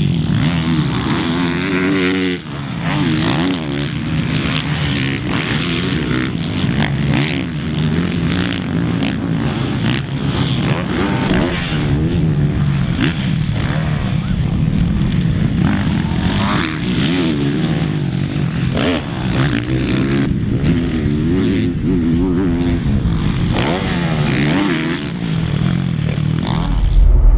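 Kawasaki four-stroke motocross bike engine revving hard and easing off over and over, pitch climbing and dropping as it accelerates, shifts and backs off around the track. Near the end a deep rumble comes in.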